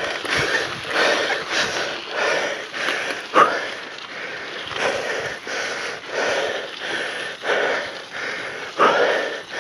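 A mountain biker breathing hard and rhythmically, about two breaths a second, from the effort of pedalling uphill.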